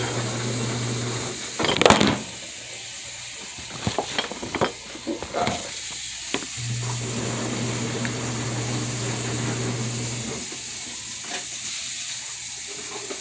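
Kitchen handling sounds: a sharp clatter about two seconds in, then a few scattered clicks and knocks of utensils and containers. Underneath runs a steady hiss, and a low hum comes and goes.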